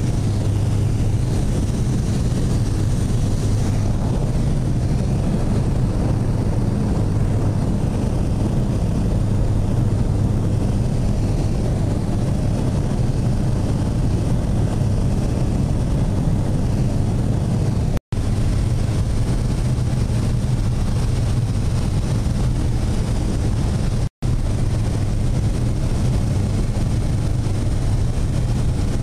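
Light aircraft's engine and propeller running steadily, heard inside the cabin as a low hum under a rush of air. The sound cuts out for a split second twice, about two-thirds of the way through and again six seconds later.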